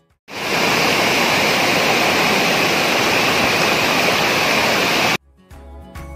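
Steady rush of falling and tumbling water from a waterfall and its rocky stream. It cuts in sharply just after the start and stops abruptly about five seconds later, when music takes over.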